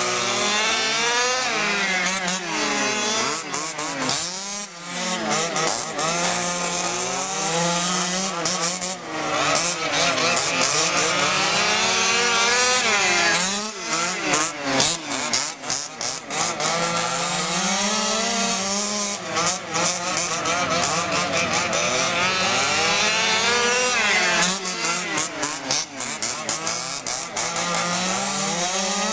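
Several 1/5-scale HPI Baja RC cars' small two-stroke gas engines buzzing together, their pitch rising and falling every few seconds as they throttle up and back off.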